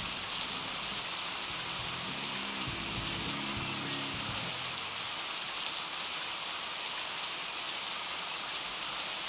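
Steady heavy rain falling on the ground, an even hiss at constant level. Low music notes underneath stop about four and a half seconds in.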